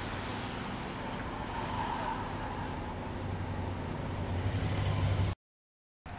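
Outdoor street noise as road racing bicycles ride past at speed, with a low rumble growing louder toward the cut. The sound cuts off suddenly about five seconds in, and similar noise resumes just before the end.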